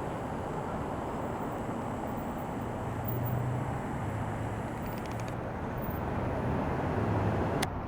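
Steady outdoor noise with a low, vehicle-like rumble, ending in a sharp click near the end.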